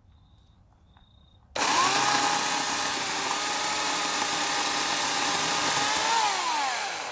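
Portland 14-inch electric chainsaw, its 9-amp motor switching on suddenly about a second and a half in and running at a steady whine while cutting a branch, then winding down in pitch near the end as the trigger is released.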